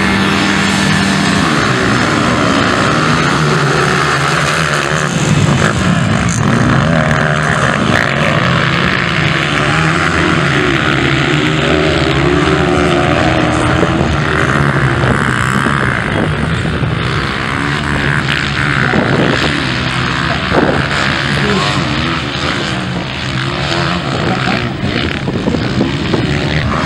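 A pack of motocross bikes revving at the start gate, then accelerating away and racing round the dirt track. Many engines overlap, their pitch rising and falling as riders open and close the throttle through the turns.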